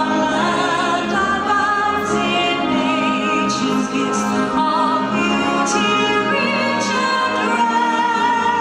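A singer holding slow, sustained notes with marked vibrato in an operatic style, over steady low accompaniment.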